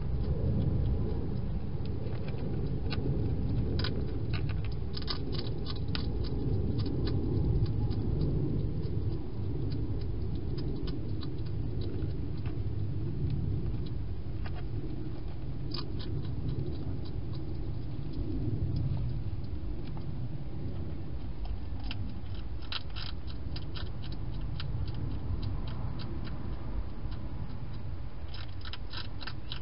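A wild hedgehog chewing food inside a clear plastic feeding box: bursts of quick crisp clicks come and go several times over a steady low rumble.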